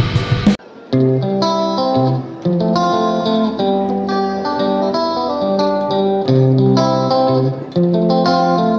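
Music: a plucked guitar playing a tune of notes and chords, starting about a second in, after a short noisy sound that cuts off abruptly.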